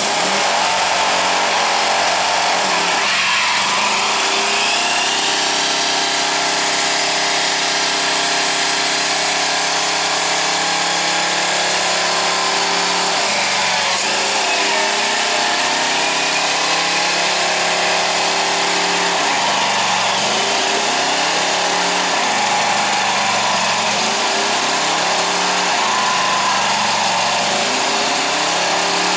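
Vintage Ford pickup's engine held at high revs during a burnout, the rear tyre spinning on the pavement. The revs sag and climb back several times, around 3, 13, 19, 21 and 26 seconds in.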